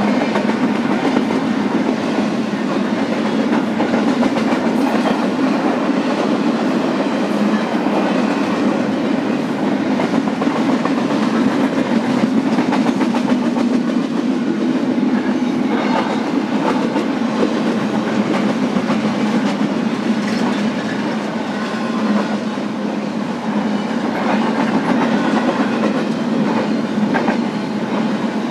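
BNSF intermodal freight train rolling past, a steady loud rumble of the cars with steel wheels clicking irregularly over the rail joints.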